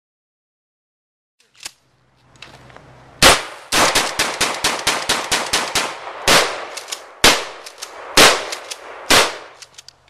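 Gunfire: a single shot, then a rapid automatic burst of about eight shots a second lasting about two seconds, then four single shots about a second apart.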